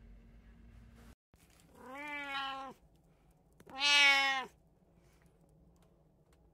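A domestic cat meowing twice, two drawn-out calls that rise, hold and fall, the second louder than the first.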